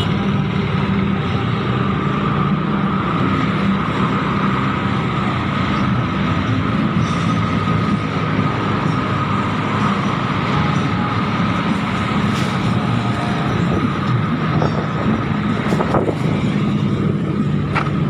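Motor scooter engine heard from on board, running steadily at low road speed, with the hum of other scooters and traffic close around it.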